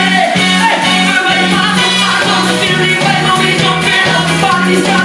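Live calypso band playing an upbeat groove, with a bass line pulsing steadily under a male lead singer. The band includes saxophones, a drum kit and keyboards.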